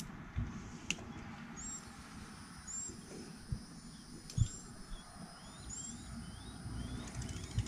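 A small bird chirping over and over in short, high chirps, several of them rising quickly, with a few sharp knocks and clicks of hand tools being handled. The loudest knock comes about four and a half seconds in.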